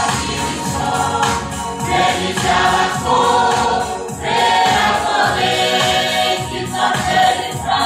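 A mixed choir of men, women and children singing a Chuukese Christmas hymn together, over a steady accompanying beat.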